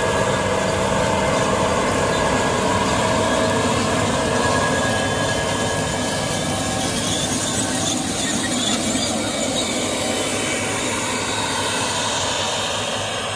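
Case IH Magnum 400's 8.7-litre six-cylinder turbo-diesel working steadily under load as the tractor pulls a 40-ft air drill past through stubble, along with the noise of the drill running through the ground. It gets a little quieter near the end as it moves away.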